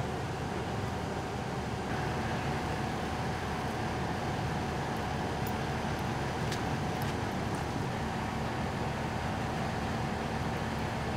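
Steady engine rumble with a constant whine, from fire apparatus running nearby, with a few light clicks just past the middle.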